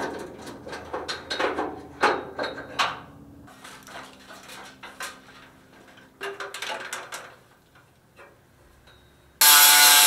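Irregular metallic clinks and rattles of parts and tools being handled. About nine seconds in, a power grinder starts cutting into the car's sheet-metal body, a loud steady grinding that runs on to the end.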